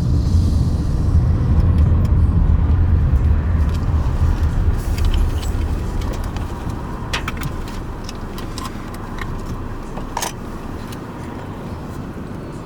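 Low road rumble inside a moving car, strong at first and gradually fading, with a few sharp clicks and rattles partway through.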